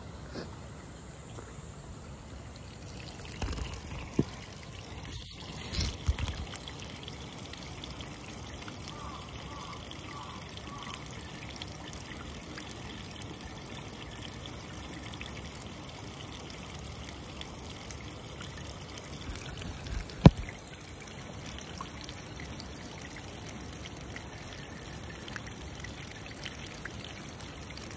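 Hot-spring water running and trickling in a steady rush, from Kusatsu's Yubatake hot-spring channels. A few short knocks stand out, the loudest about two-thirds of the way through.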